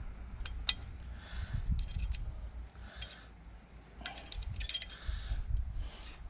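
A few light metallic clicks and taps from hands working at the base of a Vladimirets T-25 engine's finned cylinder barrel, over a steady low rumble of wind on the microphone.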